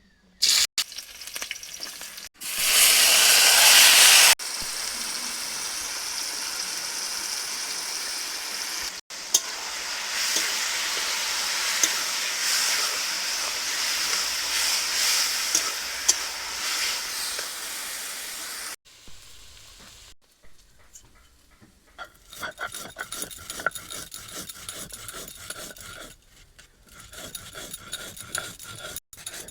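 Food frying in hot oil: a loud burst of sizzling a few seconds in, then a steady sizzle with small crackles, and near the end quieter scraping as a spoon stirs the food in the pan.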